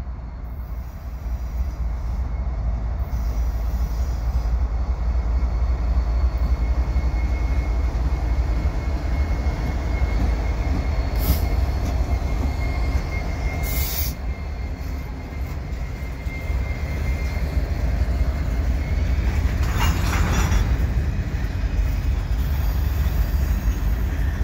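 A CN freight train's diesel-electric locomotives, an ES44AC and an SD70M-2, pass close by with a deep steady engine rumble, followed by grain hopper cars rolling on the rails. A thin, high wheel squeal comes and goes as the train takes the curve, with a brighter screech about twenty seconds in.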